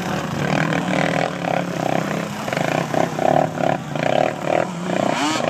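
ATV engine running, its note surging up and down in quick uneven pulses, then climbing in pitch near the end.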